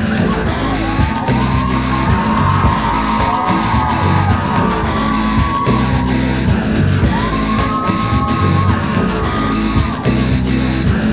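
Music playing loud with a steady pulsing beat and gliding, arching melodic lines over it.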